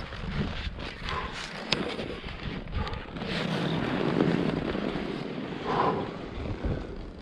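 Skis hissing and scraping through fresh snow, with a few sharp clicks and wind on the microphone.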